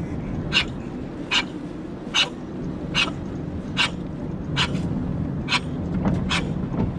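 An elderly Pomeranian breathing in short, noisy gasps at a steady rhythm of about one every 0.8 seconds, the labored breathing of a mild seizure-like attack.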